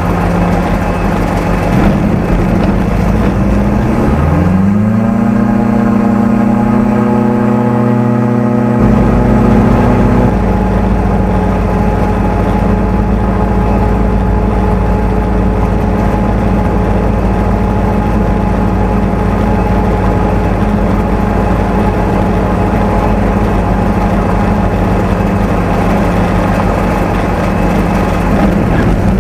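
Streak Shadow microlight's engine heard from the cockpit, its pitch rising steeply about four seconds in as the throttle opens, then running steadily at high power. Near the end the pitch dips and climbs again.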